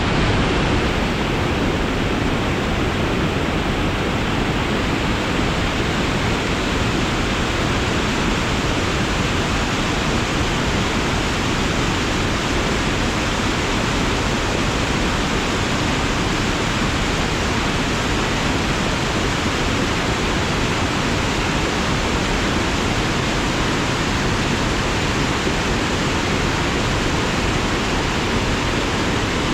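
Water of a waterfall cascading over rocks: a loud, steady rush of water.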